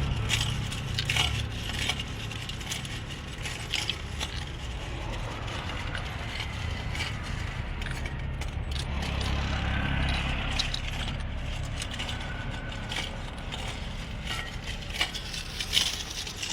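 Scattered metallic clinks, clicks and scrapes of bolts and hand tools as the tappet cover is fitted and its bolts are put in, over a steady low hum.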